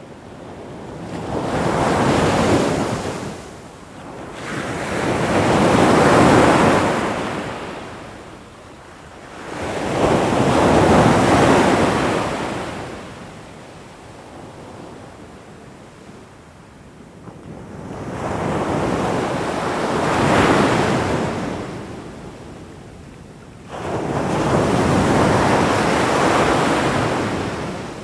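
Ocean surf: waves breaking and washing in, a rushing noise that swells and fades five times, with a longer lull in the middle. One wave near the end comes in suddenly.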